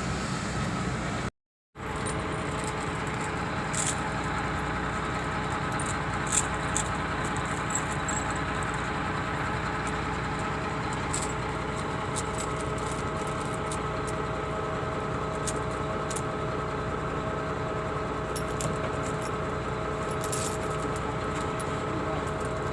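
Heavy diesel machinery running steadily under a continuous droning whine, with scattered light metallic clinks and ticks. The sound cuts out for a moment about a second and a half in.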